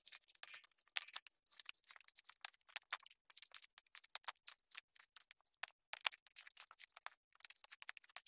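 Coconut husks being pried off on a husking stake: irregular, crisp cracking and ripping of the dry fibres, many short snaps in quick succession.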